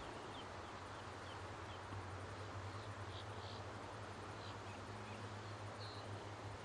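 Sandhill crane chick giving short, high peeps, a dozen or so scattered irregularly, over a steady low hum.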